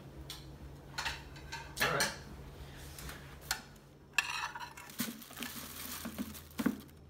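A metal spoon scraping and clinking on a plate as leftovers are scraped into a kitchen bin, in separate clicks and short scrapes, with knocks from the bin's metal lid near the end.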